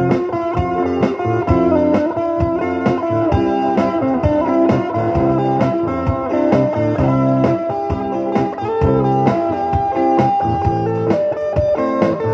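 Blues-rock band music with an electric guitar, a Telecaster-style guitar played along with the recording.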